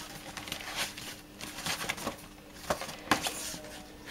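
Paper seed packets being flipped through and pulled from a plastic tray: a run of irregular rustles and crinkles, the sharpest near the end, over a faint steady hum.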